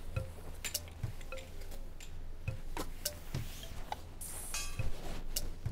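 Scattered light clicks and knocks of clothes hangers on a metal rail and the rustle of a down parka being taken down and put on, with a brief burst of fabric swish about four seconds in, over a low steady hum.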